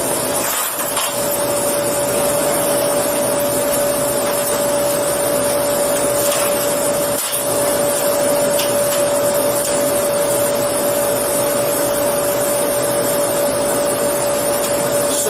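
Steady machine noise: a loud, even hiss with a steady mid-pitched hum that sets in about half a second in and holds, with a few faint ticks.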